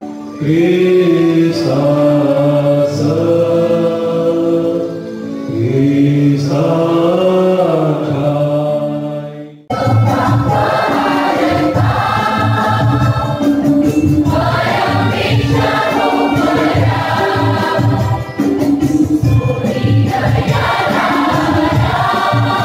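Church choir singing a hymn with electronic keyboard accompaniment: slow, held notes at first, then after an abrupt cut about ten seconds in, fuller singing over a steady beat, with a hand drum (dholak) in the choir.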